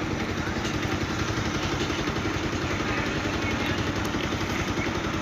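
A motor vehicle's engine running steadily, with a fast low pulsing and a constant hum.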